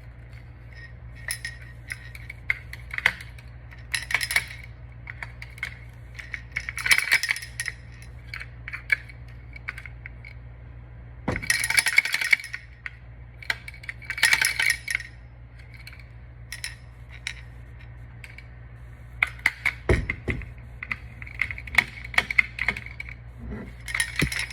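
Small metal parts of a caliper handle rattling and clinking in repeated short bursts as the handle is shaken and worked to get its spring to seat in the centre.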